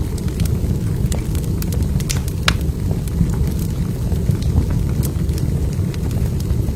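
Log fire burning in a fireplace: a steady low rumble of flames with scattered crackles and sharp pops, one louder pop about two and a half seconds in.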